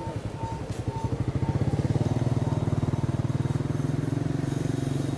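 Motorcycle engine running close by, its fast even pulsing growing louder about a second and a half in and then holding steady.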